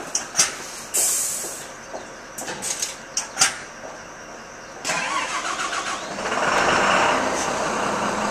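Cloth rustling and scraping against the camera's microphone, with scattered clicks. About five seconds in, the steady running of a coach bus engine comes up and grows louder.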